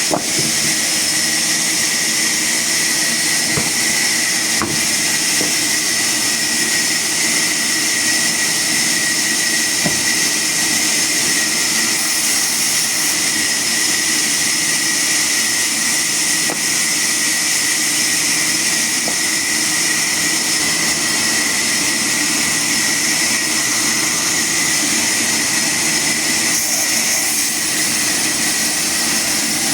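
A machine running steadily: a constant whine and hiss that holds the same pitch throughout, with a few faint clicks.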